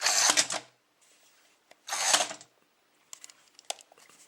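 Two short rustling bursts, one at the start and one about two seconds in, followed by a scatter of light plastic clicks, from the Buzz Lightyear remote-control toy and its remote being handled.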